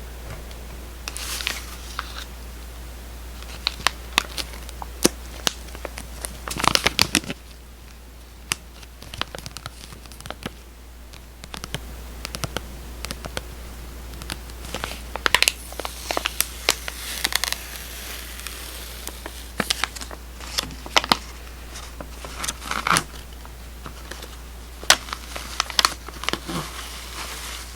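Close-up crinkling and rustling of a soft plastic packet of cleansing tissues being handled, with many irregular sharp clicks, over a steady low hum.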